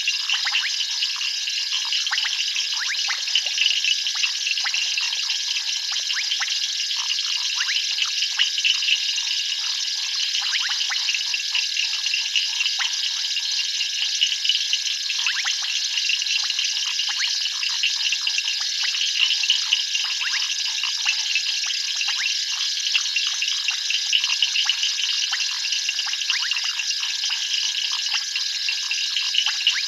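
Night chorus of frogs and insects: a dense, unbroken high-pitched trilling and buzzing, full of short chirps, over a constant thin whine.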